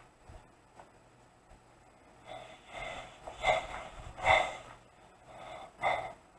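Breathy gasps and rasping breaths from a person's voice, coming in a run of bursts from about two seconds in, the loudest near the middle and again near the end.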